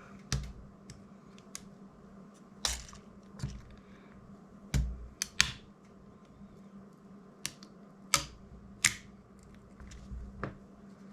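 Scattered small clicks and taps of tools and fingers on the plastic and circuit board of a DJI Mini 2 drone as its motherboard is freed and lifted out, at irregular intervals over a faint steady hum.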